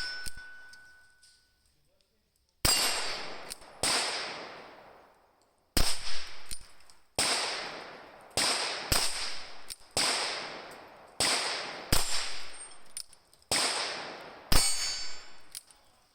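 Ruger Super Wrangler .22 single-action revolver firing about eleven single shots, spaced about a second apart. Each sharp crack rings out and dies away over a second or so.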